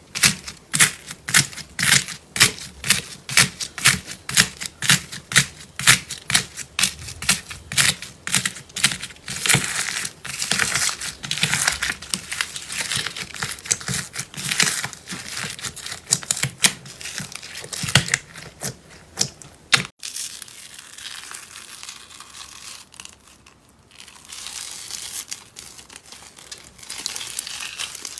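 Slime being pressed and squished by hand: sharp crackling pops about two a second, then a denser crinkling crunch. After a cut two-thirds of the way through comes a softer crinkling.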